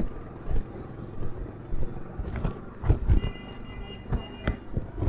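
Auto-rickshaw engine running as it pulls ahead and away, its low rumble fading, under regular thumps of walking footsteps about twice a second. A brief high-pitched ringing tone sounds a little past three seconds in.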